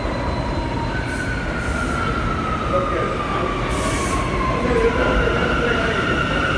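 R179 subway train arriving into an underground station: a steady rumble with a whine that slowly falls in pitch as it comes in, then a higher steady tone near the end, with a few brief hisses.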